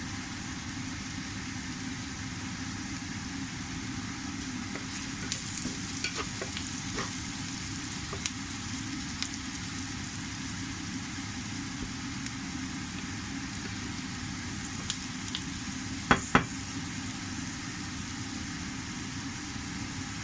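Onions and potatoes frying in oil in a pan with a steady sizzle, while a spoon or spatula stirs them, clicking against the pan a few times. Two sharp knocks about three-quarters of the way through are the loudest sounds.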